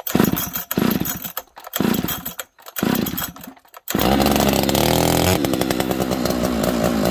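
Husqvarna 576 XP two-stroke chainsaw being pull-started after sitting all winter: a few short pulls, then it catches about four seconds in. It revs briefly and settles to an even idle.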